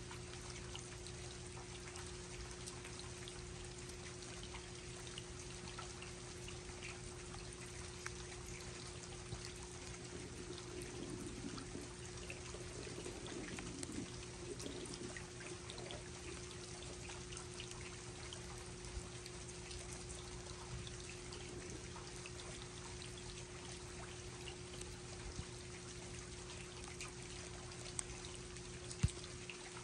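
Steady rain falling, a continuous hiss dotted with many small drip and patter ticks, over a steady low hum. Two sharper drips or taps stand out near the end.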